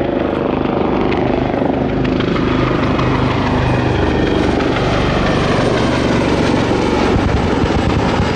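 Two AW159 Wildcat helicopters flying past low, with the steady beat of their main rotors and the whine of their twin turboshaft engines. The rotor beat grows heavier near the end as one comes closer.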